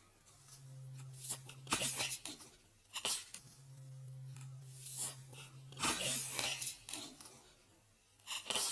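Card-deck packaging being handled and opened: a series of short crinkling, tearing and scraping strokes, with a low steady hum in two stretches underneath.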